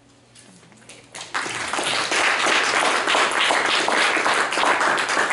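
Audience applause, breaking out suddenly about a second in after a short hush and carrying on.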